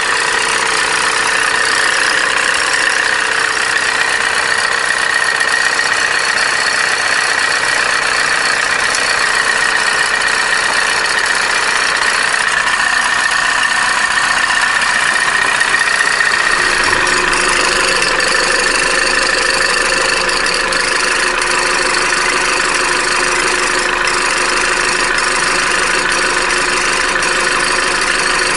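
Opel Corsa D's A14XER 1.4 four-cylinder petrol engine idling steadily, with a high steady whine over the running. About 17 seconds in, the idle note settles slightly lower.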